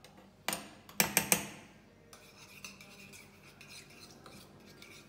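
A utensil stirring a thick mayonnaise-and-mustard dressing in a bowl: several sharp clinks against the bowl in the first second and a half, then softer, uneven scraping.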